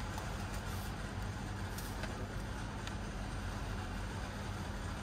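Steady low hum under an even background noise, with a few faint clicks.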